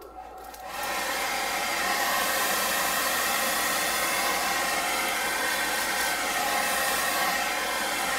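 Hand-held hair dryer switched on about a second in and then blowing steadily: a rush of air with a faint motor whine.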